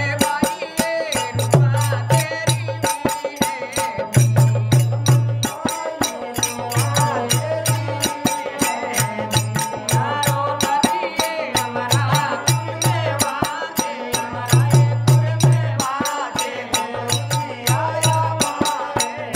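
Rajasthani folk bhajan music: a harmonium playing held chords and melody, a dholak keeping a steady beat with deep strokes, and khartal clappers clicking rapidly, while a man sings the devotional song.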